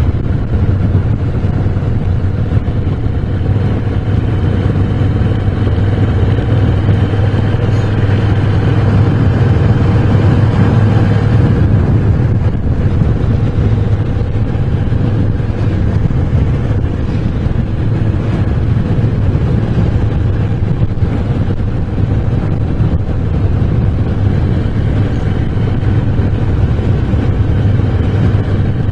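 Moto Guzzi V7 Special's 750 cc air-cooled V-twin running under way on the road, riding through a winding pass. It builds slightly until about ten seconds in, then eases off and carries on steadily.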